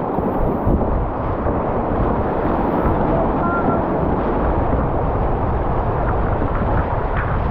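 Whitewater rapids rushing steadily around a kayak, with splashes from paddle strokes, heard close up from the boat.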